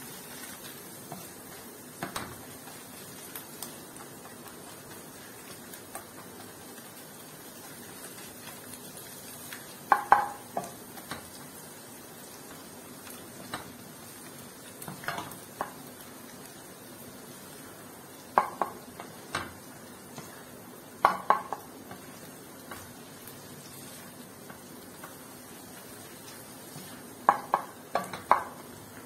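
Plastic spatula scraping and stirring egg and masala in a non-stick pan, with a sharper clack against the pan every few seconds, over a light sizzle of oil.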